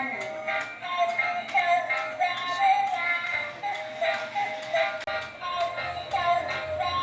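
Simple electronic melody of short, bouncy repeated notes with a light ticking beat under it.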